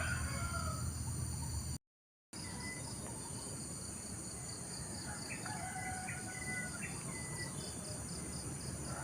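Outdoor rural ambience: a steady high-pitched insect chorus, with a rooster crowing once about five seconds in, a held call that steps up and then falls away. The sound drops out completely for half a second about two seconds in.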